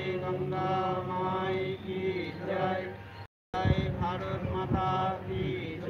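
Voices chanting in long, held melodic notes. The sound drops out completely for a moment just past halfway, and a few low thumps follow.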